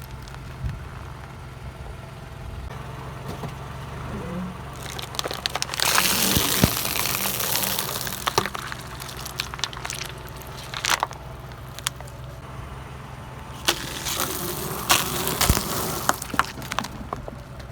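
A car engine runs steadily while a tyre rolls over objects and crushes them. There are two spells of crackling and sharp cracks, one starting about five seconds in and one about fourteen seconds in.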